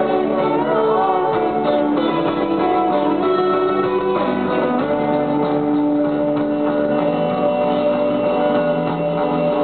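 Live rock band playing through an arena PA, guitars to the fore, heard from the audience. From about five seconds in the band holds long sustained notes.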